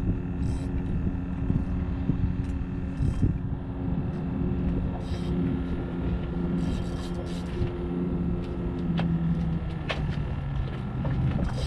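Boat engine running steadily, its pitch dropping slightly in the last few seconds, with a few faint clicks.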